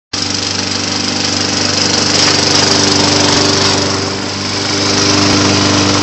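Toro push mower's petrol engine running steadily and loud, close by, dipping slightly about four seconds in before picking up again.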